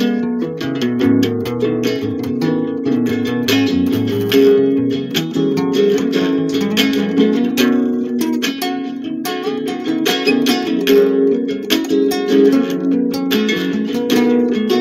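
Solo guitar played continuously: quick picked and strummed notes with ringing chords, and a lower bass line moving underneath during the first few seconds.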